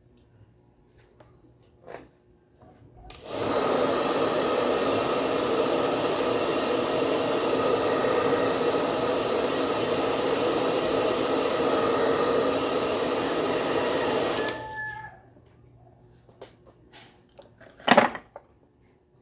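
Osterizer blender's motor running steadily for about eleven seconds, then switching off with a brief whine as it stops. This is a test run after a push-button switch repair. A single sharp knock follows near the end.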